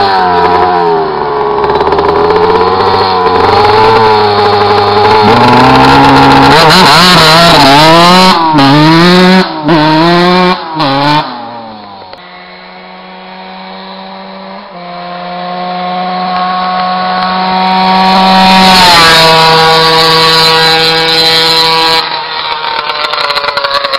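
Two-stroke motocross bike engines. First, one close by is revved up and down over and over with the throttle. Then one approaches at a steady throttle, growing louder until its pitch drops.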